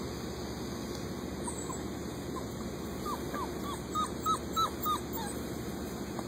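A puppy whimpering: a run of short, high whines, each falling in pitch, coming about three a second and loudest around two-thirds of the way through.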